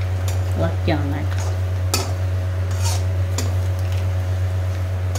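A spatula scraping and stirring in a metal wok, with a few sharp clinks of metal on metal, over a steady low hum.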